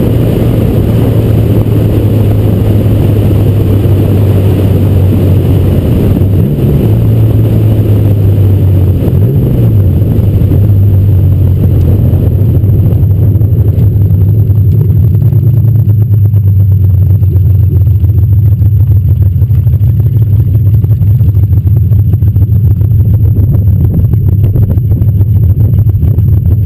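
Porsche 911 flat-six engine running with heavy wind and road noise on the car. The pitch bends briefly about six and nine seconds in. About halfway through the wind and road noise die away as the car slows, leaving a steady low engine note at low revs.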